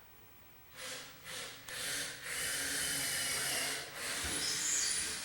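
Rasping strokes against wood, in five strokes: two short ones about a second in, then three longer ones.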